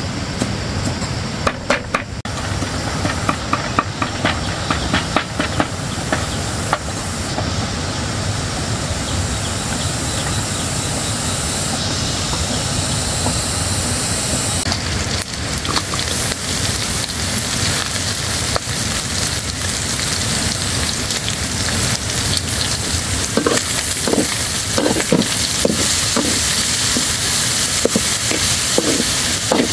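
A cleaver chops on a wooden chopping block in quick knocks over the first several seconds. Then, from about fifteen seconds in, meat sizzles in a wok while a metal spatula stirs it.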